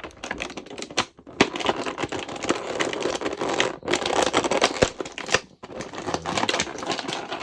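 Plastic packaging tray crackling and clicking as an action figure is worked loose from the ties holding it in.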